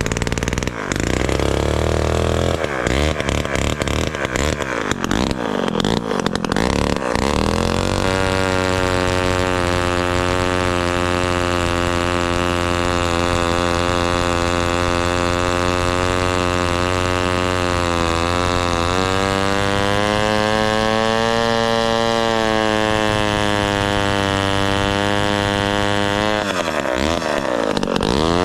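Villiers 5F 98cc two-stroke engine of a 1957 Danarm Fury chainsaw running. For the first eight seconds it runs unevenly, its speed wavering up and down, then it settles into a steady run, with a short dip and rise in speed near the end.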